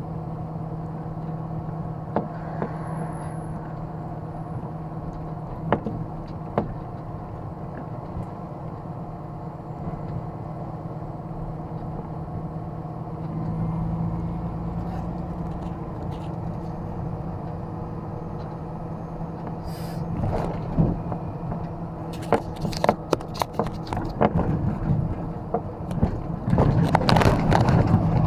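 Truck engine running steadily, heard inside the cab as a constant hum while driving. In the last several seconds a run of clicks and knocks grows louder, as the camera is handled.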